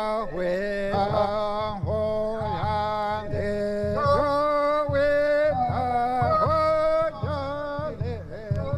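Recording of a Chickasaw tick dance song: voices singing a chanted melody with held, bending notes, in the call-and-response style of the song, over a steady low beat.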